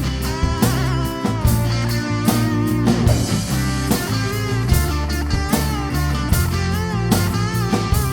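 Rock band playing an instrumental section: an electric guitar solo with bent, wavering notes over bass and drum kit.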